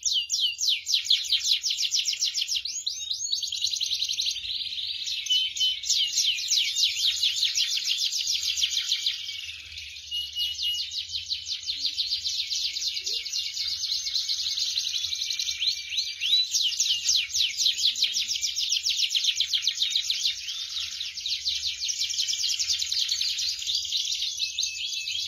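Canaries singing nonstop, several birds at once: long, fast, high-pitched rolling trills mixed with chirps, with a short lull about ten seconds in.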